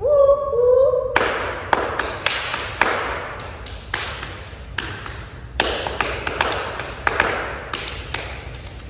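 Body percussion: sharp hand claps and slaps on the thighs played in quick one-bar rhythm patterns, starting about a second in.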